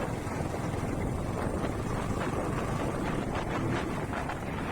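Steady rushing noise from a motorcycle ride under way: wind and road noise on the microphone, with no distinct engine note.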